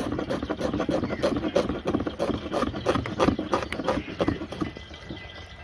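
Knife chopping onion finely on a board: quick, uneven knocks several times a second, easing off near the end.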